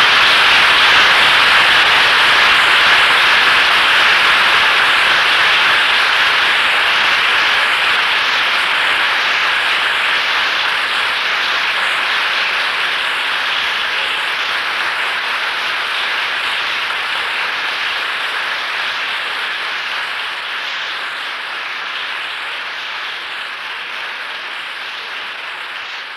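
Audience applauding steadily, slowly fading over the long stretch.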